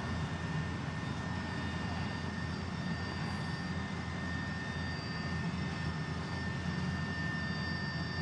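Steady low hum with hiss and a thin, steady high-pitched tone, unbroken throughout.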